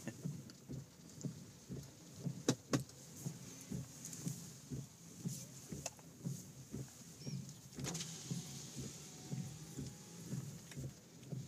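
Footsteps walking at a steady pace, about two to three soft thumps a second. A couple of sharp clicks come about two and a half seconds in and another near eight seconds.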